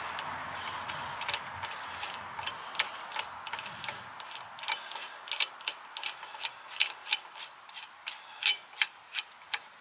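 Small metallic clicks and ticks from a brake piston wind-back tool being worked by hand at a rear brake caliper as its threaded centre spindle is unscrewed. The clicks are irregular, sparse at first and coming several a second from about halfway through.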